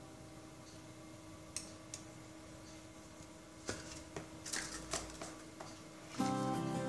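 Metal spoon scraping and clinking against a plastic mixing bowl and paper muffin cases as batter is spooned in: a handful of scattered clicks and scrapes. Background guitar music fades out early and comes back near the end.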